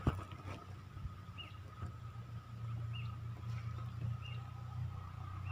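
A bird giving short, repeated chirps, about one a second, over a steady thin whine and a low hum that grows louder about halfway through.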